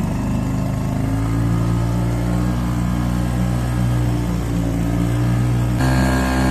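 A motor boat's engine running at a steady cruising drone, its note shifting slightly about a second in.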